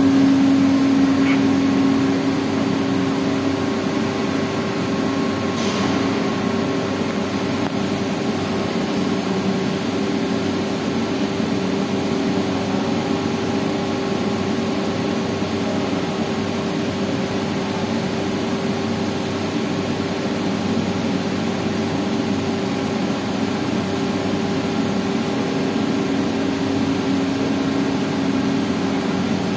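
Hydraulic power unit of a Woodtech CP48/50/1 cold press running with a steady hum as the press platen travels upward.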